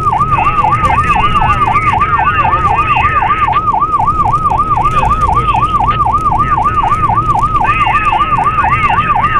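Emergency-vehicle siren sounding a fast yelp, its pitch sweeping up and down evenly about four times a second. It sits over steady low road and engine rumble from a moving car.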